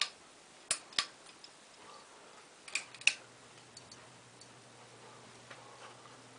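A Heritage Alexis 42-inch hugger ceiling fan: several sharp clicks, the loudest about three seconds in, after which the fan motor's low steady hum sets in.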